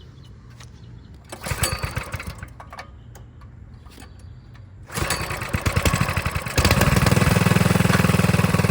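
Small single-cylinder mini bike engine being pull-started: a first pull cranks it over without catching, then on a later pull it fires and runs, loud and steady near the end. It runs on gas sprayed straight into the carburetor, the sign that the carburetor itself is dirty and clogged.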